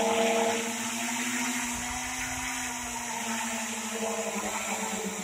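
Home-built drone's electric motors and propellers whining at low speed with the drone still on the ground, the pitch swelling a little and easing back mid-way. It fails to lift off because one motor is not running.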